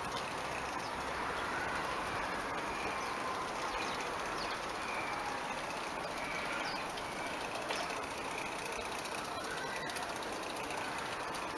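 Small live-steam model tram with a double-acting steam engine running on garden-railway track: a steady hiss with no pauses, with birds chirping faintly now and then.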